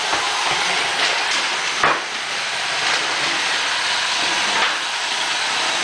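Roomba robot vacuum running with a steady whirring hiss, with a sharp knock about two seconds in and a few fainter ones.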